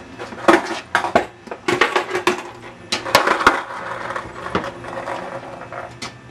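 Irregular sharp knocks, clicks and scuffs, about a dozen over the few seconds, with a rustling stretch in the middle.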